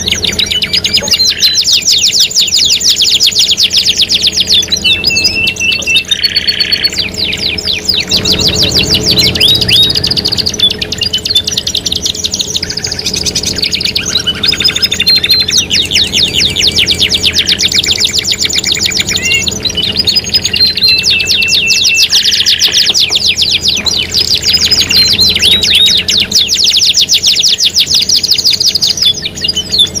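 Several cage songbirds singing over one another in one mixed track: goldfinch, sikatan londo and konin/sogon/ciblek songs, as labelled. It is a continuous stream of fast, high trills and rolls broken by short whistles and chirps. It is a canary 'pancingan' bait track, played to prompt a canary to sing.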